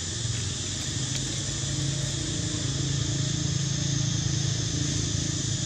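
A steady low motor hum, like a running engine, swelling slightly toward the middle and easing near the end, over a constant high hiss.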